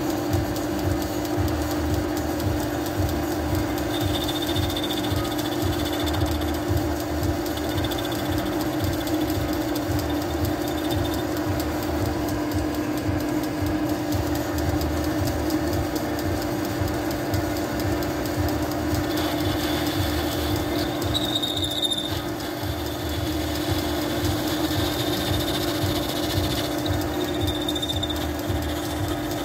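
Metal lathe running steadily with the tool cutting the spinning workpiece: a steady machine hum over a low rumble. A faint high whine comes and goes, from about four seconds in and again more strongly in the last third.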